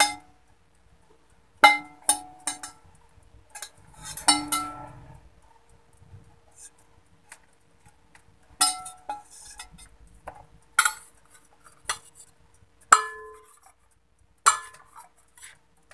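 A metal spatula clinking and scraping against a ceramic plate as slices of pizza bread are lifted off it: about nine sharp separate clinks with a short ring, a second or more apart, over a faint steady hum.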